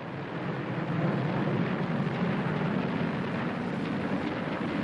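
Jet aircraft engines droning steadily, a rushing noise with a low hum and no distinct impacts.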